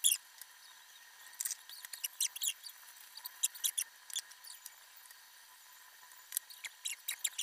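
Egg-dipped bread frying on a hot flat tawa: irregular sizzling crackles and spits in short clusters, loudest at the very start, quieter for a couple of seconds past the middle, then picking up again near the end.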